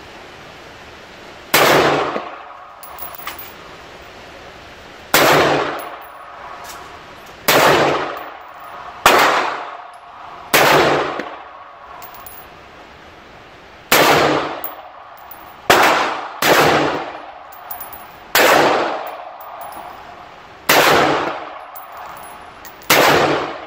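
Spikes Tactical AR pistol fired in eleven deliberate single shots, spaced about one to three and a half seconds apart, each loud crack ringing out in the echo of an indoor range. Small clicks sound between shots.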